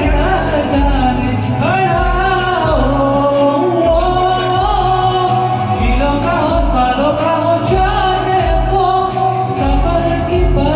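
A man singing a melodic ballad over instrumental accompaniment with a steady low beat.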